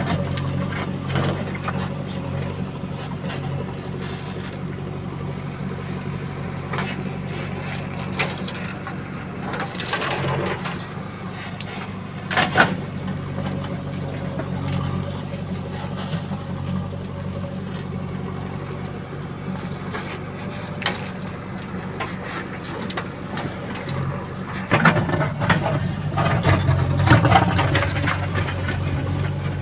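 Diesel engine of a JCB 3DX backhoe loader running steadily while it works, with scattered knocks and rattles of the machine and bucket; louder bursts of clatter come about ten, twelve and twenty-five seconds in.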